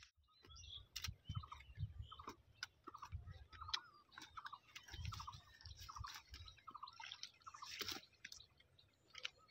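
Bamboo poles being driven into wet mud and water hyacinth: faint crunching and squelching with soft low thumps and clicks. A run of short repeated chirps sounds over it from about a second in to near the end.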